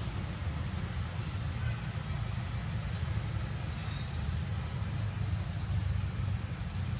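Steady low outdoor rumble with a faint hiss over it, the kind left by wind on the microphone or distant traffic. A few faint high chirps come about three and a half to four and a half seconds in.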